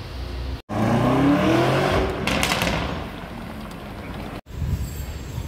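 Car engine accelerating, its note climbing for about a second and a half and then easing off to a lower, steadier run. The sound is broken by two short silent gaps.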